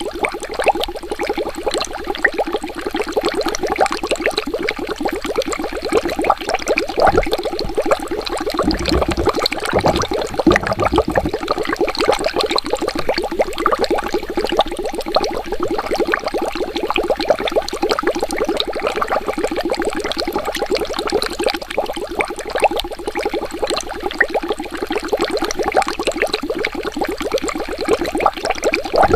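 Water bubbling continuously: a dense, rapid stream of small bubble pops, with a few deeper gurgles about a third of the way in.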